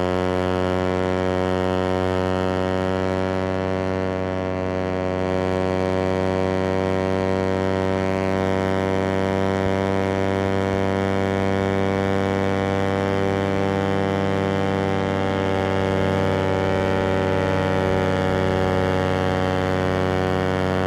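Suzuki GSX-R150's single-cylinder four-stroke engine running flat out at high, steady revs at top speed: one unbroken, steady droning note.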